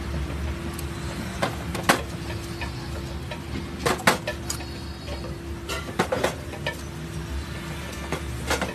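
A handful of sharp clicks and taps from cooking at a dosa griddle as sauces are added to the noodle topping, several of them in close pairs, over a steady low hum.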